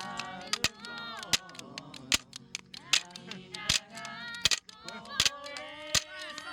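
Large beach bonfire crackling, with wood popping in frequent sharp cracks. A group's voices sing along underneath.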